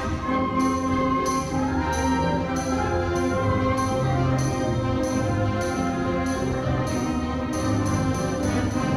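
Middle-school concert band playing, brass and woodwinds in sustained chords that change every second or so.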